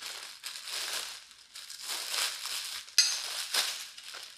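Clear plastic packaging bag crinkling in irregular surges as it is handled, sharpest about three seconds in.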